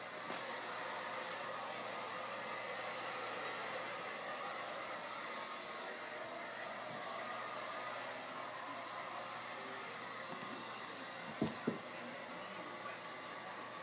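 A steady hiss runs underneath. About eleven and a half seconds in come two quick thumps, a cat landing on a carpeted cat-tree platform.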